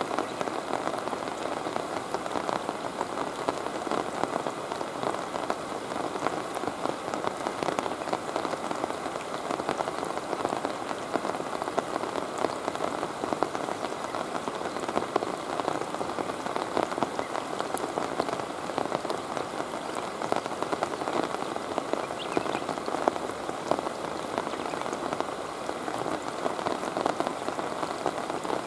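Steady rain falling on a river's surface: a dense, even hiss of countless small drop impacts.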